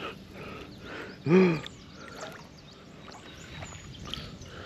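Faint water splashing and sloshing from a hooked smallmouth bass being played in the river. About a second in there is one short exclamation from the angler, rising then falling in pitch.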